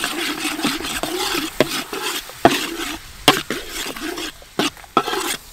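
A metal spatula scrapes and stirs chopped garlic through sizzling sugar in a hot wok, frying them together until fragrant. The sizzle dies down about three seconds in, leaving a few sharp clinks of the spatula against the wok.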